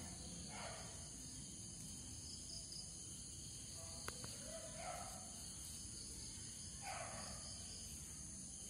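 Faint steady background noise with a constant high hiss, a few brief faint voices, and a single sharp click about four seconds in.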